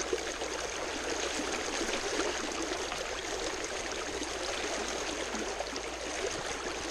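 Fast creek current rushing steadily, a continuous even wash of water from a stream running high.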